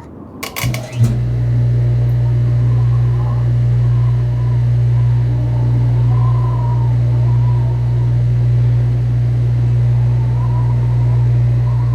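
A few clicks, then a dishwasher starting up about a second in and running with a loud, steady low hum.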